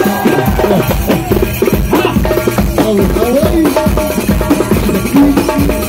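Live Arabic party music: a miked metal darbuka (goblet drum) plays a steady, fast beat under an electronic keyboard melody with sliding, ornamented notes.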